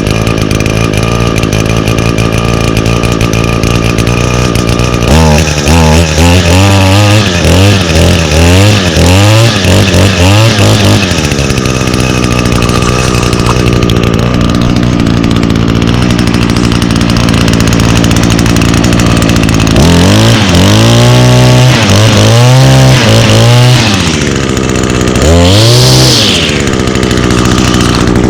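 Echo SRM225 string trimmer's 21.2cc two-stroke engine running after a fresh start, idling steadily and revved up in a string of quick throttle blips about five seconds in, then revved again in a second series near the end.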